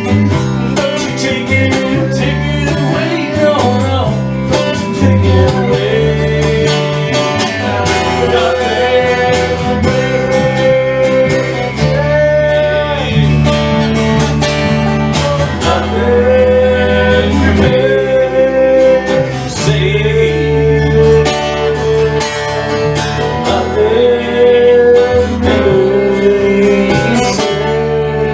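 Instrumental break of a country-style song: strummed acoustic guitar over bass and drums, with a gliding lead melody on top.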